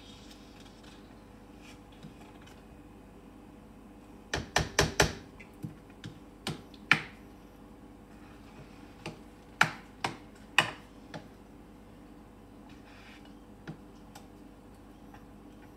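Sharp, irregular clicks and knocks: a quick run of about five about four seconds in, then single ones scattered through the rest, over a faint steady hum.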